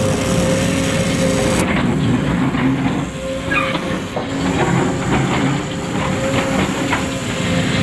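Radio-controlled model vehicles running: a steady motor and gear hum with scattered clicks and rattles.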